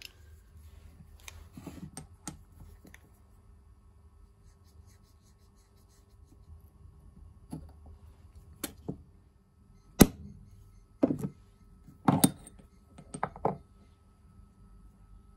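A digital caliper and small aluminium parts being handled and set down on a wooden workbench: a string of separate sharp clicks and knocks, the loudest about two-thirds of the way in, over a faint steady hum.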